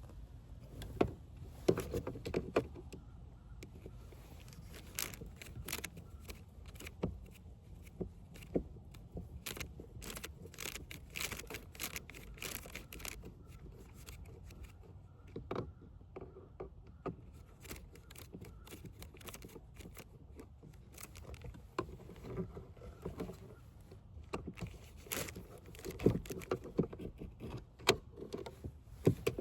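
Scattered clicks, taps and scrapes of screws, a screwdriver and plastic and metal parts being handled while a van's electrical circuit board is unscrewed and worked loose. The sounds come in irregular clusters over a faint low rumble.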